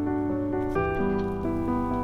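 Background music: soft piano-led track, with a new chord about three quarters of a second in and again near the end.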